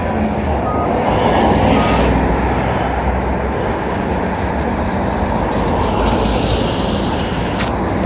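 Steady roar of passing traffic and wind over the microphone. A truck's reversing beeper sounds twice, about a second apart, in the first two seconds. A sharp click comes near the end.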